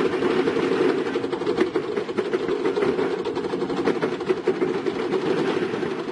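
Heavy diesel construction machine running steadily, its engine with a rapid, continuous clatter.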